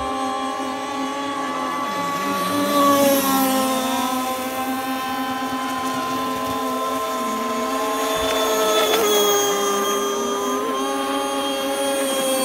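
Several radio-controlled racing speedboats running flat out, a steady high motor whine whose pitch drifts slowly as the boats circle, swelling louder about three seconds in and again around nine seconds.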